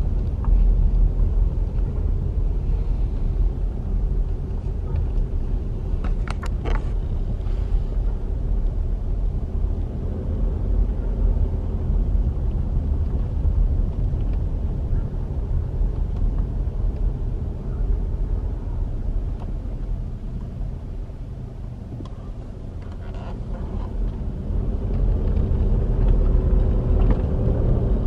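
Car driving, heard from inside the cabin: a steady low rumble of engine and tyres that eases off about three quarters of the way through and builds again near the end. A few brief clicks about six seconds in.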